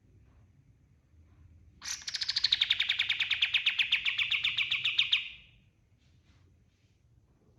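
Kapas tembak singing one rapid, even trill of a few seconds, starting slightly higher and settling in pitch, starting about two seconds in and stopping suddenly.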